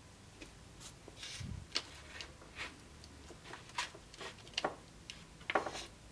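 Forged steel sword pommel and fittings handled on a wooden workbench: a string of light metallic clicks, knocks and short scrapes, with a dull thump about a second and a half in.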